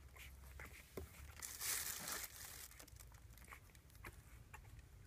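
Six-day-old rough collie puppies squirming on fleece and puppy pads: faint rustling and crinkling with scattered small clicks, and one louder rustle lasting under a second about one and a half seconds in.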